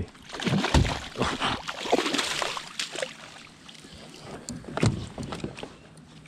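A hooked Australian salmon thrashing and splashing at the surface as it is scooped up in a landing net. There is a quick flurry of splashes and knocks in the first few seconds, and a single thump about five seconds in.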